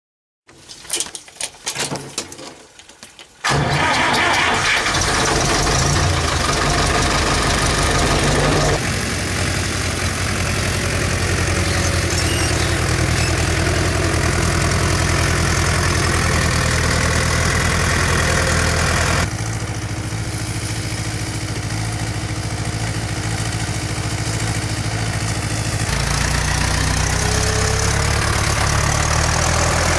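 Ursus C-360's three-cylinder diesel engine being cranked and catching about three and a half seconds in, then running loudly. Its note changes about nine seconds in, drops a little around nineteen seconds and rises again near the end.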